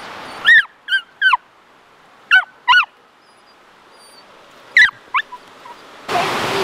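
A dog whining: about seven short, high whines that rise and fall in pitch, in three quick clusters.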